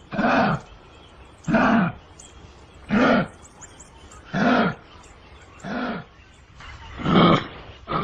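Kangaroo calling: a short call that rises then falls in pitch, repeated evenly about every one and a half seconds, six times over.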